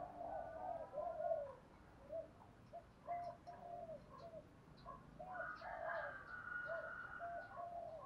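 Spotted dove cooing: a long run of short, arched coos following one another closely. Higher chirps from another bird join in over the middle of the stretch.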